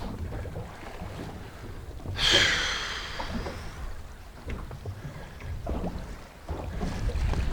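Wind buffeting the microphone on a small boat, a steady low rumble, with a brief high-pitched whine about two seconds in that falls away over a second or so.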